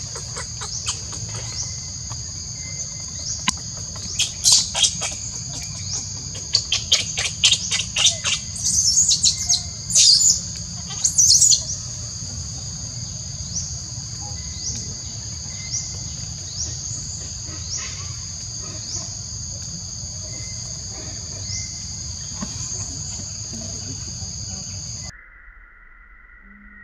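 A steady, high-pitched insect drone, with a run of loud, short, shrill chirping calls between about 4 and 12 seconds in. Near the end the drone cuts off suddenly and a quieter, lower steady insect buzz takes over.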